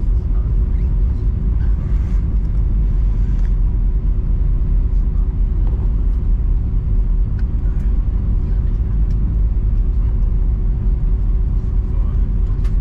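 Steady low rumble inside an Airbus A319 cabin after landing, engines at idle, with a constant hum over it.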